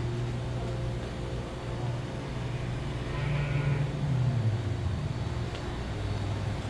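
Car engine and road noise heard from inside the cabin, a steady low hum whose pitch drops about four seconds in as the car slows.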